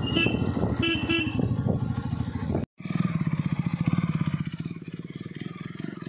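Motorcycle engine running with a steady pulsing rumble, and three short horn beeps in the first second or so. The sound breaks off for an instant partway through and the engine sound resumes.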